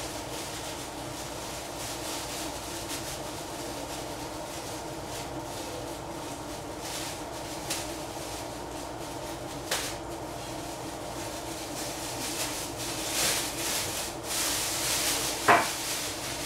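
Kitchen handling sounds over a steady low hum: a few scattered clicks and knocks, a stretch of hissing noise near the end, and one sharp ringing clink of a utensil against a pot.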